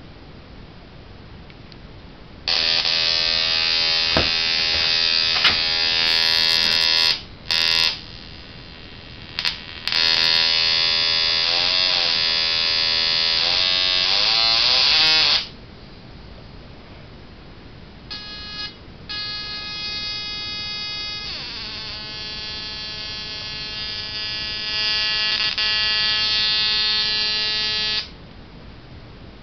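Car ignition coil driven by a homemade 555-timer and FET pulse circuit, firing at an audio rate and heard as a loud, high-pitched electric buzz. It starts a couple of seconds in, cuts out briefly twice, slides in pitch as the pulse rate is changed, stops, then comes back quieter at a steady, different pitch for about ten seconds.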